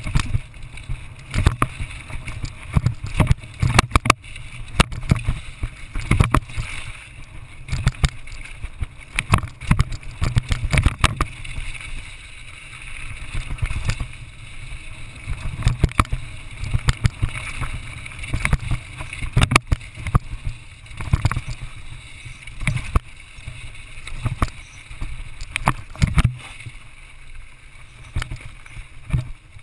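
Mountain bike descending a rocky trail, picked up by a GoPro riding with it: irregular knocks and rattles as the bike jolts over rock and dirt, over a constant low rumble of tyres and wind.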